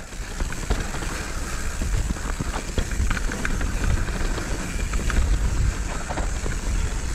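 Mountain bike descending a dirt trail at speed: wind rumbling on the microphone and tyres rolling over dirt and rocks, with scattered clicks and rattles from the bike.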